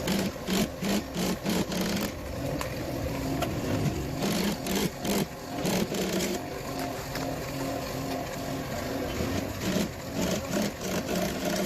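Rapid series of sharp clicks and knocks from upholstery tool work on a wooden sofa frame, coming in bunches of about four or five a second, with a steadier stretch in the middle.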